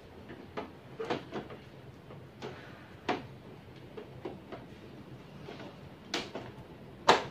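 Plastic clicks and knocks as a black plastic unit is worked into the open front of an HP Color LaserJet MFP 178nw laser printer, ending in one louder clunk near the end as it seats.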